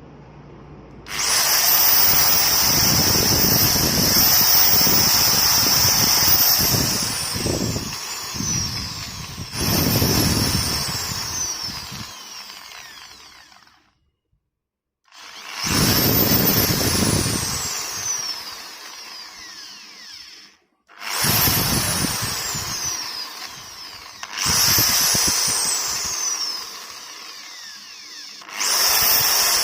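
iBELL ED10-30 500 W corded electric drill triggered in about six bursts. The motor comes up to speed with a high whine, and when the trigger is released the whine falls as it winds down.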